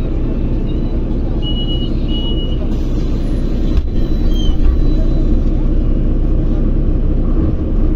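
Steady road and engine rumble heard from inside a moving vehicle, with two short high beeps in quick succession about a second and a half in.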